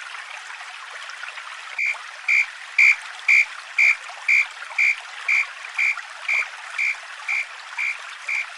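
A Japanese level-crossing (fumikiri) warning bell starts ringing about two seconds in, a sharp clanging tone repeating evenly about twice a second, over a steady hiss.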